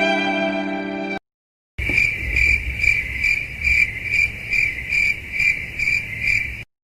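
A cricket chirping steadily, about two and a half high chirps a second: the stock 'crickets' sound effect. It follows the end of a sad violin phrase, which cuts off about a second in and is followed by a short gap.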